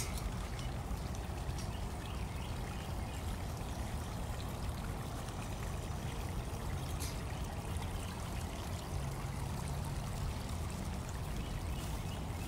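Steady running water, pouring and trickling into a pond pool, with a continuous low rumble under it.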